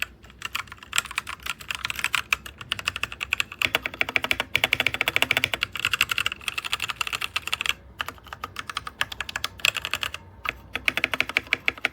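Fast typing on a DIERYA x TMKB T68 magnetic-switch mechanical keyboard: a dense run of keystroke clicks, broken by a few short pauses.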